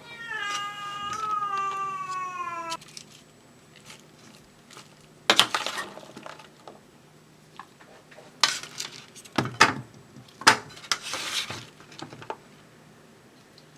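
A cat meows once, a long call falling in pitch, over the first three seconds. Several short, noisy bursts follow later on.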